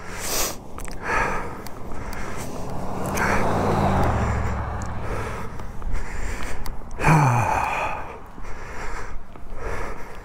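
A man breathing hard, with gasps and sighs, and a short groan falling in pitch about seven seconds in. A low drone sits under the first four seconds and drops in pitch before fading.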